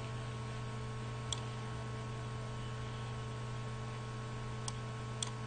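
Steady low electrical hum, with three faint clicks of a computer mouse: one about a second in and two near the end.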